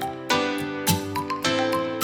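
Background music: a soft instrumental with plucked notes at an even beat, about two a second.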